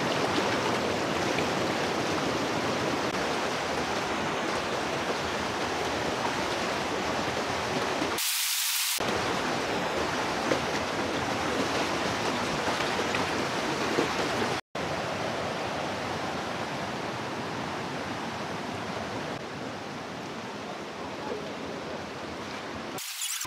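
Steady, even rush of flowing water. About a third of the way in it turns thin and hissy for under a second, and about halfway it cuts out for an instant.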